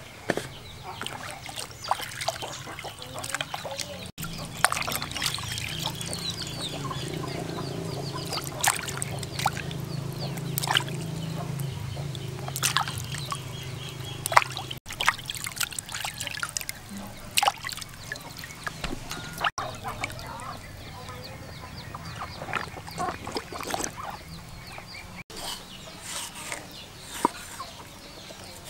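Water splashing and dribbling as a whole plucked chicken is rubbed and rinsed by hand in a plastic basin, with many short sharp taps and knocks. Domestic fowl call now and then in the background.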